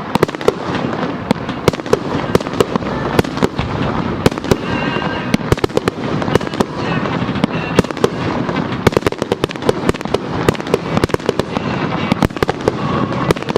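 Fireworks display: a dense, continuous run of sharp bangs and crackling pops, many a second.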